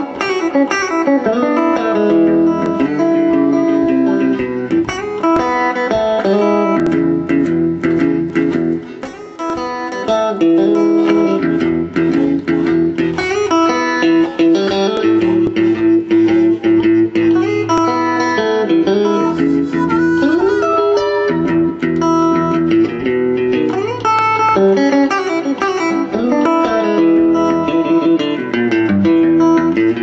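Electric blues instrumental: a Stratocaster-style electric guitar playing together with a harmonica, with long held notes and some bent notes.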